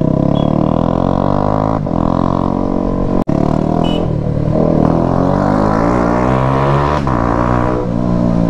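Motorcycle with a loud modified exhaust, revving and accelerating. The engine pitch climbs and falls through the gears, with a few sharp cracks from the exhaust.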